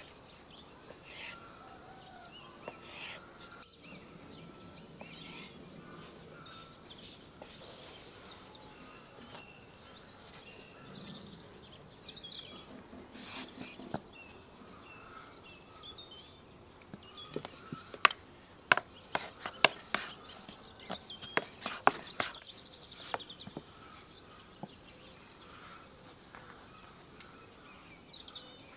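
Small birds chirping and singing in the background throughout. A run of sharp taps comes about two-thirds of the way in, from hands working dough on a wooden board.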